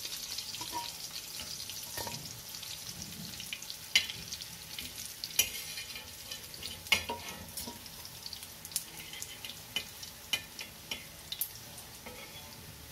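Fish fillets sizzling in shallow oil on an iron dosa tawa, with a metal spatula scraping and clacking against the griddle several times as the fried pieces are lifted off.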